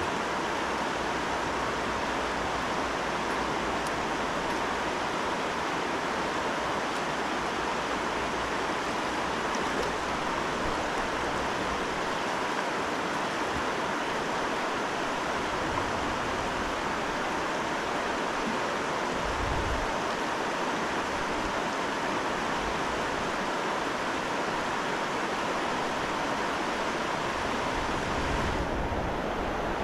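Steady rush of the Salmon River's current flowing over its bed, with a brief low rumble about two-thirds of the way in.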